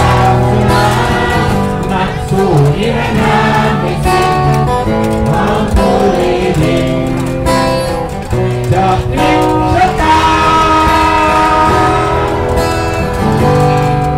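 Acoustic guitars strummed while a group of people sing a song together.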